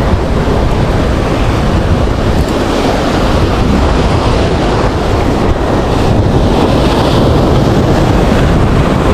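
Ocean surf breaking on a rocky shore, a steady rushing wash, with wind buffeting the microphone.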